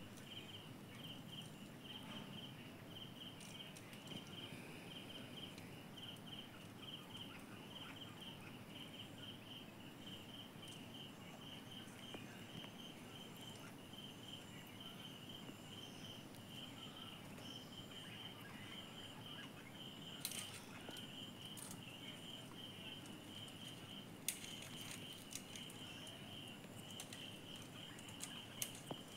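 An insect chirping steadily in a fast, evenly spaced high-pitched pulse, over low background noise. A couple of sharp clicks come past the middle.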